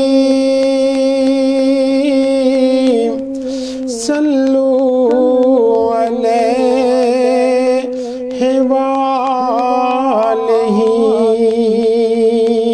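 A man's voice singing a naat unaccompanied, drawing out the end of the refrain in long held notes with wavering ornaments. It breaks off briefly for breath about three and a half seconds in and again about eight seconds in.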